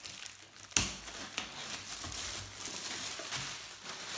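Clear plastic product packaging crinkling and rustling as it is handled, with one sharp click about a second in.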